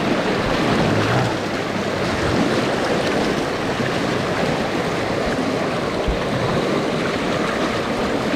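River water rushing steadily around a wading angler, an even noise with no breaks.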